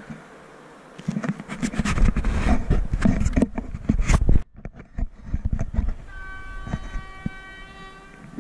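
Wind buffeting and knocks of handling on the camera microphone for the first few seconds. About six seconds in, a fainter train horn sounds one steady note for about two seconds.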